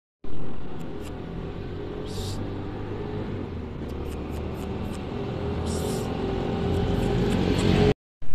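A motor vehicle's engine running, with a steady rumble that slowly grows louder toward the end.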